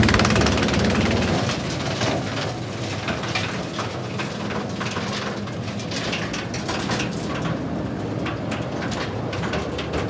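Linddana TP760 PTO wood chipper running on a tractor, with many short sharp ticks through it. It is loudest at first while wood chips are still flying, easing over the first couple of seconds to a steady run.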